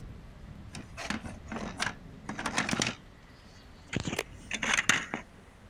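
Irregular clicking and clattering of small hard plastic toys being handled and set down, in uneven clusters of taps.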